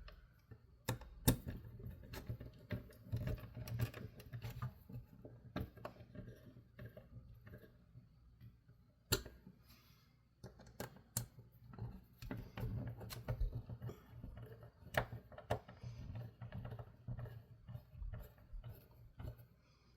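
Irregular small clicks and taps of small plastic parts and hand tools being handled, with a few sharper knocks about a second in, at nine seconds and at eleven seconds.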